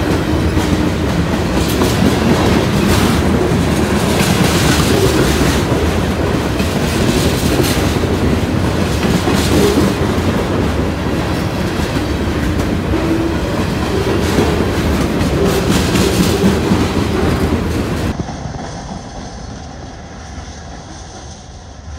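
Freight train cars rolling past close by, their steel wheels clattering over the rail joints with a steady rumble. The sound turns abruptly quieter and duller near the end.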